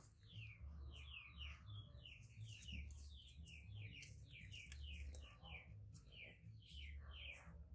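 Faint, rapid chirping of small birds: many short downward-sliding chirps, several a second, over a low pulsing hum.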